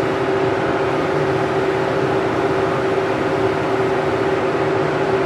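A steady machine hum: one constant tone over an even hiss, with no change in level.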